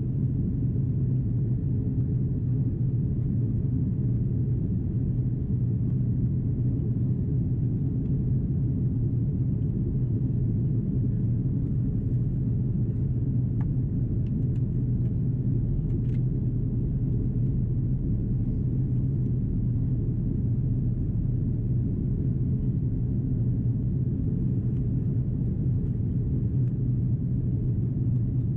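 Steady low drone inside the cabin of an Airbus A330-343 in descent: the Rolls-Royce Trent 700 engines and the airflow over the fuselage, with no change in level.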